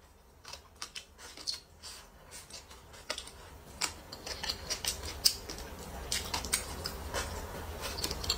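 Close-up biting and chewing of crispy fried chicken: a run of sharp crunches and crackles, growing louder and busier from about three seconds in.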